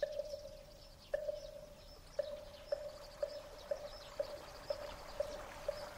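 Buddhist wooden fish (moktak) knocked in a steady rhythm, each knock with a hollow ringing note: two slow strokes, then about two a second, the rhythm of a temple chant. Faint bird chirps sound high above it.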